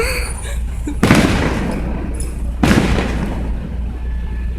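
Two aerial fireworks shells bursting about a second and a half apart, each a sharp boom that fades into a rumbling, crackling tail.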